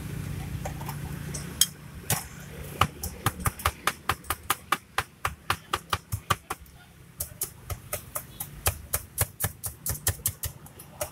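A metal utensil knocking quickly against the inside of a stainless-steel mug, about three or four sharp knocks a second, as avocado is chopped up in the mug. A low hum is heard under it for the first couple of seconds, then fades.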